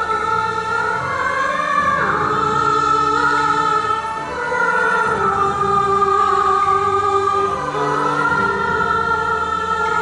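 A woman singing a Cantonese song with musical accompaniment, in long held notes that slide between pitches.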